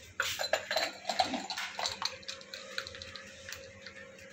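Ice cubes clattering and clinking as shaken iced tea is poured from a cocktail shaker into a glass. The clinks come thick and fast for about two seconds, then thin out to a few faint ticks.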